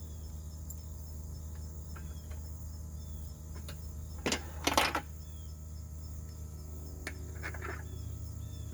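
Metal parts clattering and clinking as a steel mower blade and its spindle hardware are handled and fitted back onto the mowing deck: a loud clatter about four seconds in and a lighter one near the end.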